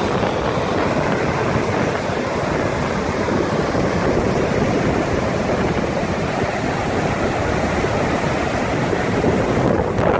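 Rough ocean surf: waves breaking and foaming water washing in, a steady rushing noise.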